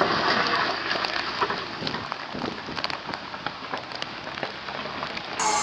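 Tyres crunching and crackling over wet rock and loose stones as an SUV crawls across a rocky trail: a steady crackly noise with many small clicks.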